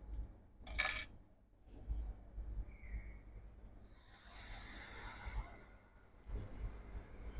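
Quiet handling sounds of hands working on an opened laptop, with one short sharp noise about a second in and a long breath-like hiss around the middle.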